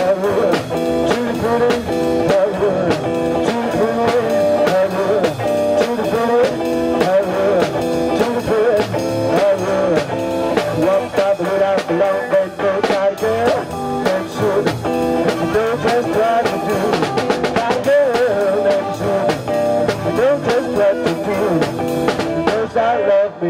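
Live blues band playing: drum kit, guitar and bass, with a singer at the microphone carrying a wavering melody over them.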